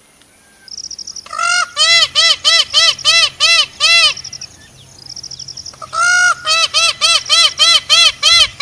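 Indian peafowl (peacock) giving rapid series of loud, repeated calls, about three to four a second. A bout of about ten calls starts a second in, then after a pause a second bout starts past the middle.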